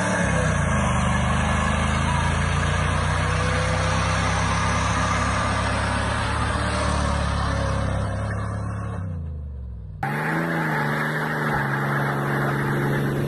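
Chevrolet pickup truck doing a burnout, its engine held at high, steady revs while the rear tyre spins on asphalt; the revs fall away about nine seconds in. After a sudden cut, a truck engine revs up and then holds steady as it drives.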